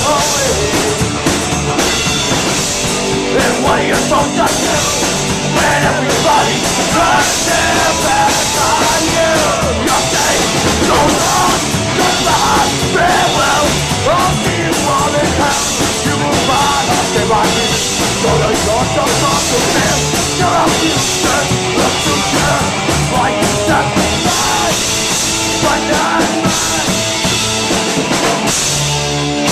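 Rock band playing loudly with a full drum kit, in an instrumental stretch with no clear sung words.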